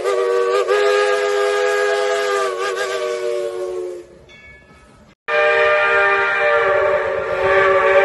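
Baldwin three-chime steam whistle blowing its chord in long steady blasts: the first dies away about four seconds in, and after a brief break a second long blast starts and holds.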